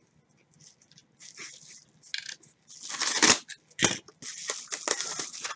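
Padded kraft envelope and plastic mailer crinkling and rustling as they are handled, with a few sharper crunches about three seconds in.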